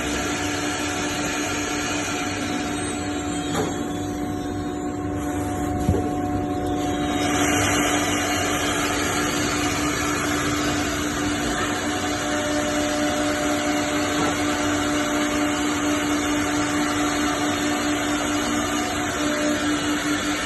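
Four-head CNC router for wood panels running, with a steady tone over continuous machining noise. The higher hissing part thins out between about two and seven seconds in, then comes back stronger.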